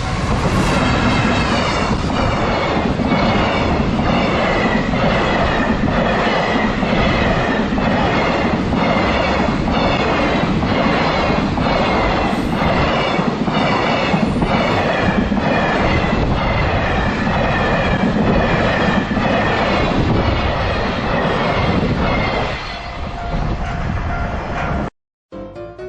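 Freight train hauled by a JR Freight EF210 electric locomotive rolling past a level crossing: a steady rumble with a regular clickety-clack of wagon wheels over rail joints. It fades near the end.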